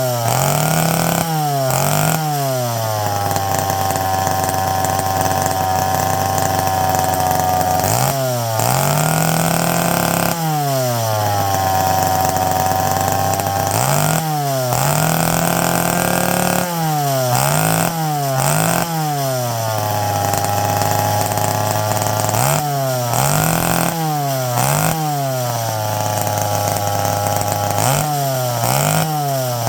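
McCulloch Pro Mac 55 two-stroke chainsaw running on its rebuilt carburettor, settling to a steady idle between quick blips of the throttle, about a dozen short revs up and back down.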